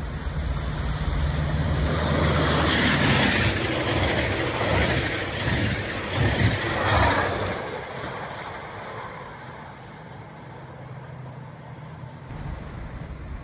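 Metrolink commuter train of bilevel coaches passing at about 127 km/h: the locomotive's hum and the rumble and clatter of wheels on rail build to a loud peak a few seconds in, then fade as the train recedes.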